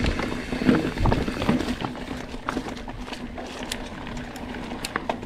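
Mountain bike rolling over rocks: the tyres crunch and the bike rattles, with a few heavier knocks in the first two seconds and scattered sharp clicks after.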